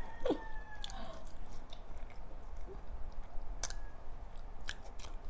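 Close-miked chewing of pinakbet vegetables and pork eaten by hand, with scattered wet mouth clicks and smacks.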